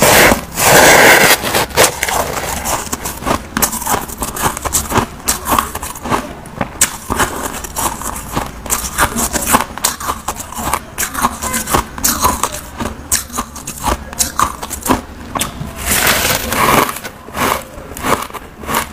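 Close-up crunching and crackling of powdery white ice being scooped with a plastic spoon from a plastic tub and bitten and chewed, a dense run of crisp clicks with louder bursts about a second in and again near the end.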